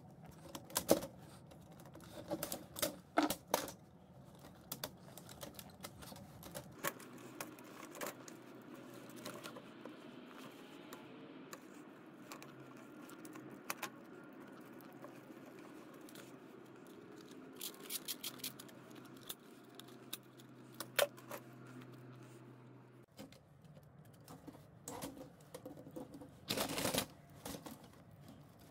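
Scattered clicks, taps and light clatter of plastic and sheet-metal parts as a VCR's tape mechanism is handled and taken apart by hand.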